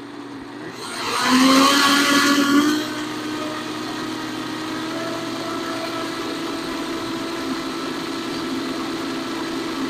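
Countertop blender running, churning a thick mash of produce and water with dry worm feed (chicken crumble, bird seed, molasses pellets) added, the motor under heavier load. About a second in it gets much louder and rougher for a couple of seconds, then settles into a steady motor hum.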